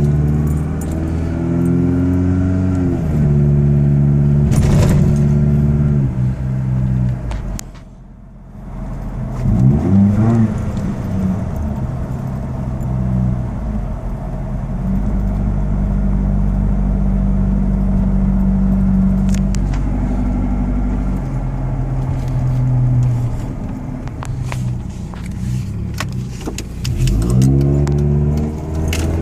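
Ford Ranger pickup's exhaust through a Flowmaster 40 Series muffler, heard from inside the cab with the window down, as the truck drives with the engine note stepping up and down between gears. About eight seconds in the sound drops off sharply, then comes back with the pitch rising as the truck accelerates, before settling into a steadier cruise.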